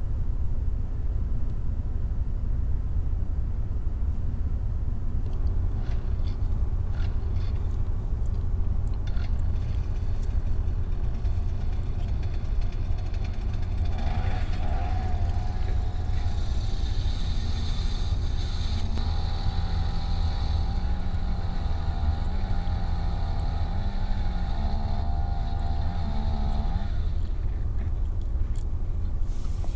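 Wind buffeting the microphone throughout. From about halfway in, a power ice auger runs, its motor pitch wavering as it bores into the lake ice, and it stops a few seconds before the end.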